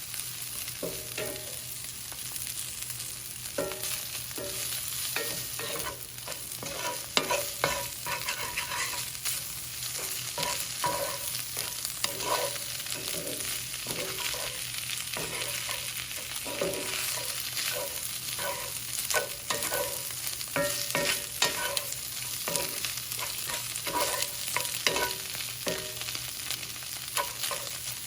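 Food sizzling and frying in a hot pan while a spatula is stirred through it, with frequent irregular scrapes and taps against the pan.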